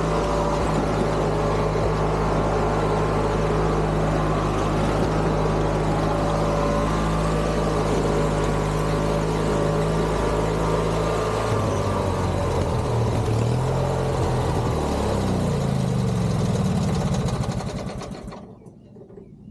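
Craftsman GT6000 garden tractor engine running steadily while the tractor crawls along, then its pitch rises and falls a few times about two-thirds of the way through before the sound fades out near the end.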